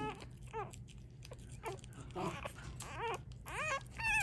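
Week-old American Cocker Spaniel puppy crying in several short whimpers, each rising and falling in pitch, the cries growing longer near the end, as a cheek swab is wiggled in her mouth. She is irritated and hungry, mad that there is no milk.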